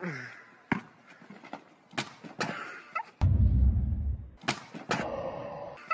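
A basketball bouncing on pavement in several sharp, separate bounces. About three seconds in, a loud low rumble begins and runs under the last impacts.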